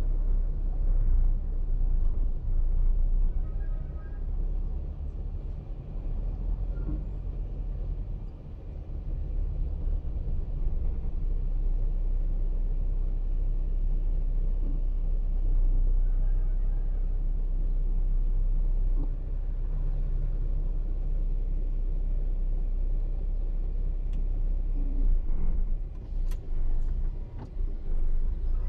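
Car moving along a town street, heard from inside the cabin: a steady low engine and road rumble, with a few knocks near the end.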